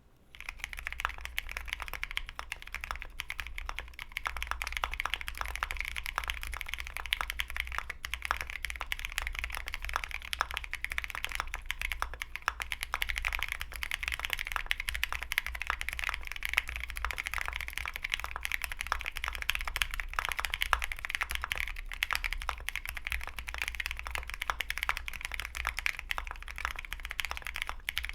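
Continuous fast typing on a custom 65% keyboard with a polycarbonate plate and lubed, filmed Gateron Black Ink V2 linear switches: a dense run of key strokes and bottom-outs, with the occasional stabilized long key.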